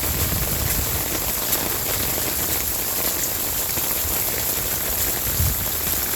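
Steady rain falling, with many separate drop hits close by.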